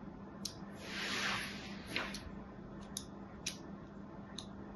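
A thin knife blade scoring a bar of soap in a criss-cross grid: a handful of crisp, sharp clicks as the blade bites into the soap, and a louder scraping hiss about a second in as it is drawn through.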